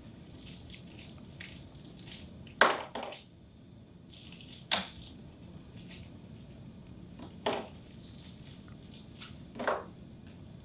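Handling of a pipette controller and plastic lab ware on a bench: about five sharp clicks and knocks, the loudest a little under three seconds in, with faint rustles and ticks between.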